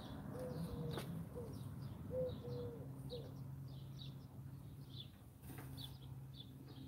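A dove cooing: a short series of low notes in the first three seconds. A small bird chirps high and repeatedly throughout, over a faint steady low hum.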